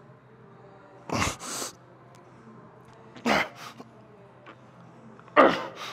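A weightlifter's forceful exhalations under strain, three hard puffs of breath about two seconds apart, one per repetition of a heavy set.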